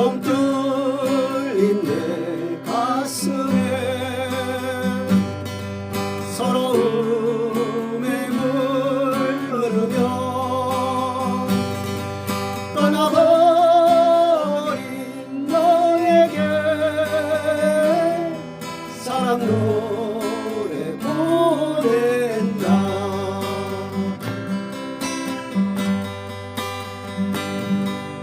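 Acoustic guitar strumming the chords of a slow folk song, with a wavering, sliding melody line above it and no words.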